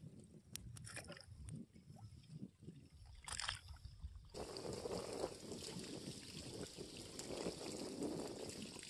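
Water sloshing around a person wading waist-deep, with a few small splashes and handling sounds, then about four seconds in a steadier wash of lapping water.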